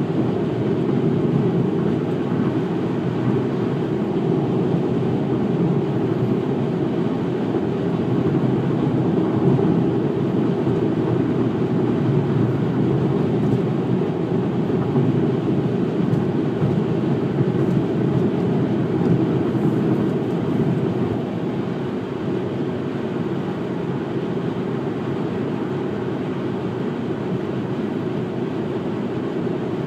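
Steady road and tyre noise from a car cruising at highway speed, heard from inside the car, easing slightly about two-thirds of the way through.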